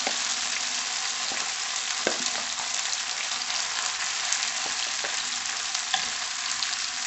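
Shrimp frying in olive oil in a pan: a steady sizzle with a few faint clicks.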